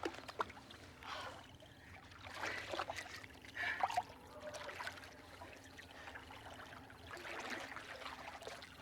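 Water trickling with small, irregular splashes, louder for a moment about four seconds in.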